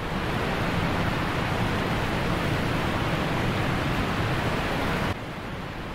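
Steady rushing road and wind noise inside a moving passenger van. It drops to a lower level about five seconds in, then cuts off.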